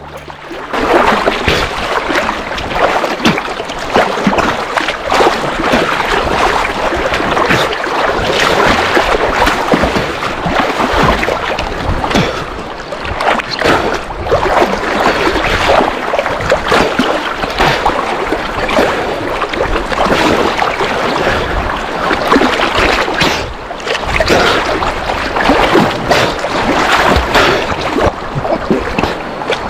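Swollen, fast-flowing river water rushing, with constant irregular splashing.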